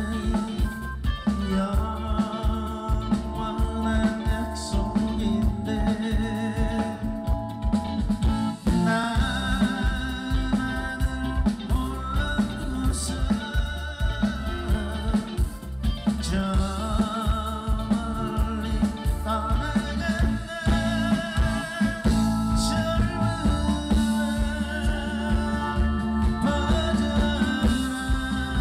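Live band playing a 1970s–80s Korean pop song with a steady beat.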